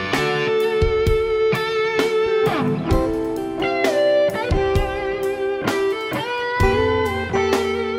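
Slow ballad backing track in G at 65 BPM, electric guitars playing held chords and melodic lines over steady drum hits, with the bass part left out for a bassist to play along.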